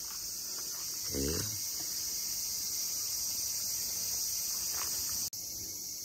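Steady, high-pitched shrilling of an insect chorus in summer woodland, with a short low voice-like sound about a second in and a brief dropout near the end.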